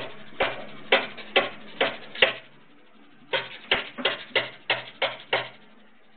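A run of sharp knocks, about two a second: five, a short pause, then seven more.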